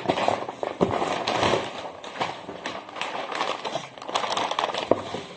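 Packing paper crinkling and rustling as it is pulled off and crumpled, with many sharp crackles throughout.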